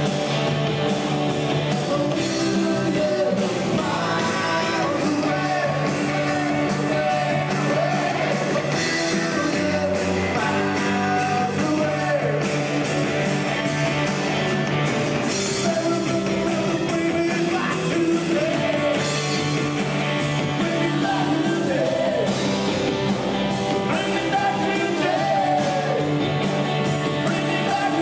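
Live rock band playing: electric guitars and drums with a lead singer, a steady driving beat throughout.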